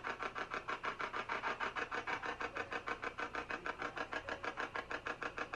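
Ghost-hunting spirit box sweeping through radio stations: choppy static pulsing rapidly and evenly, about eight times a second.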